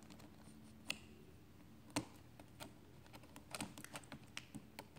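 Faint small clicks and taps of a thin tool pressing a thread into the corner of an open MacBook Pro's case, with one sharper click about two seconds in and a run of light, irregular clicks after it.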